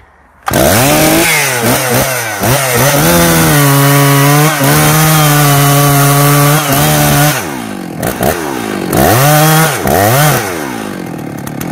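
Stihl two-stroke chainsaw revving up about half a second in, then held at a steady high rev for several seconds while it cuts the horizontal first cut of a felling notch into a thick tree trunk. Near the end it drops back and revs twice more before settling lower.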